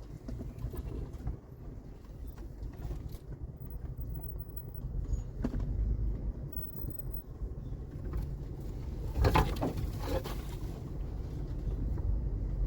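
Off-road vehicle's engine running at a slow crawl, a steady low rumble that builds gradually. About nine to ten and a half seconds in there are a few louder scraping, crackling strokes, brush and branches against the vehicle.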